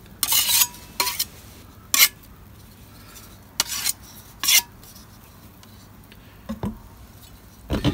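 A utensil scraping and knocking against a clear plastic tub as tile adhesive is scooped into it: a handful of short scrapes and taps spread across a few seconds, the first scrape the longest.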